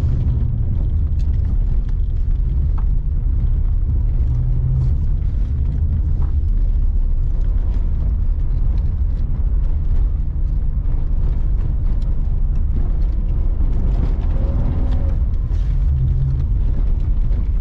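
Holden VY Commodore's Ecotec V6 running under load with an automatic gearbox, heard from inside the cabin as a steady low rumble whose note rises and falls as the car speeds up and slows on a dirt track. Scattered sharp ticks sound over it.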